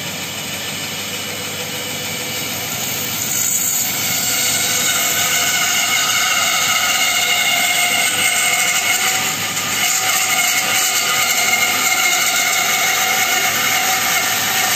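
Bandsaw running with its blade cutting through a thick block of hardwood, a steady whine of saw and cut. It gets louder about four seconds in and stays there.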